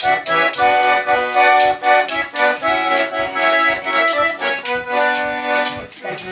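Accordion playing a song's instrumental introduction: sustained chords over a steady pulse of short bass notes.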